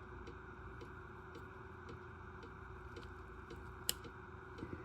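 Quiet room tone with a steady hum and a soft, regular ticking a little under twice a second, with one sharp click about four seconds in.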